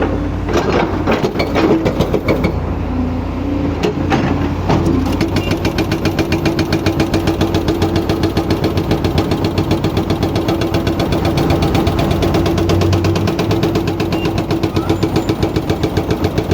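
Excavator-mounted hydraulic breaker hammering: scattered knocks and clanks at first, then from about five seconds in a fast, steady stream of blows many times a second, over the excavator's engine running.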